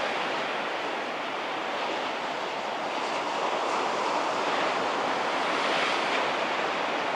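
Small waves breaking close to a sand beach: a steady wash of surf that swells a little around the middle.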